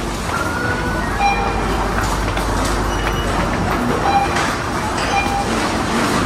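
Supermarket ambience: a shopping trolley rattling steadily as it rolls, with short electronic beeps now and then.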